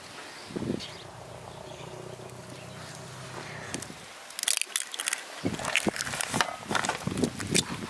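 An egg cracked over a glass bowl: a run of sharp crackles and clicks as the shell breaks and is pulled apart, starting about four seconds in. Before that, a faint low hum.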